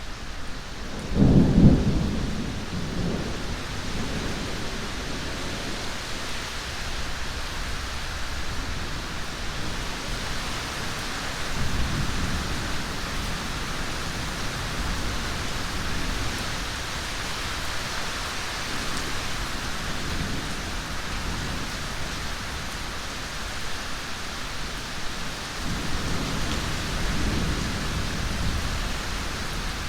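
Steady heavy rain with rolling thunder: a loud low thunderclap about a second and a half in, then fainter rumbles near the middle and again near the end.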